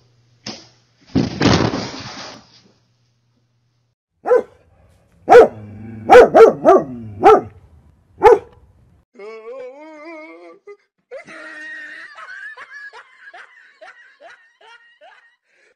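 A dog barking, about six loud, sharp barks within a few seconds, after a short rush of noise; later comes a wavering, rising-and-falling call and a string of quick short notes.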